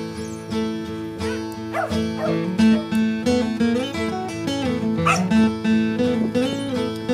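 A song plays throughout over a Shetland sheepdog barking now and then, with single barks about two seconds in and again about five seconds in.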